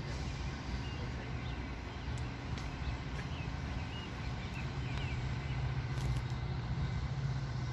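Diesel locomotive engine running with a steady low hum that grows slightly louder in the second half, with faint bird chirps.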